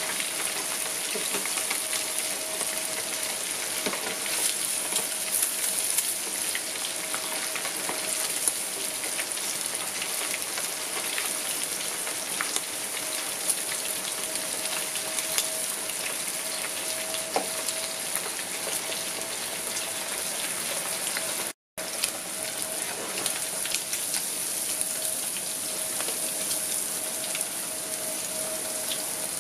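Pork spare ribs deep-frying in a pan of hot oil: a steady, dense sizzle full of small pops and crackles, with a metal spatula stirring through the oil now and then. A faint steady hum lies underneath, and the sound cuts out for an instant about three quarters of the way through.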